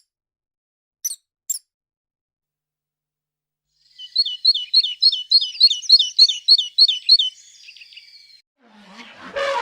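Two short high squeaks about a second in, then a bird calling from about four seconds in: a quick run of about a dozen repeated chirps, about four a second, that fades out. Near the end a different, louder sound begins.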